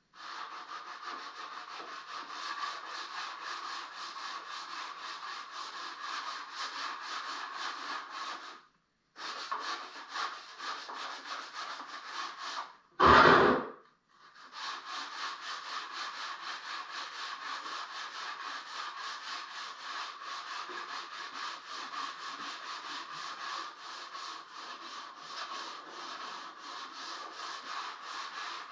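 Hand sanding of old mantel woodwork with a sanding block, in quick, steady back-and-forth rubbing strokes. There is a brief pause just before nine seconds in, and a single short, loud bump just after thirteen seconds.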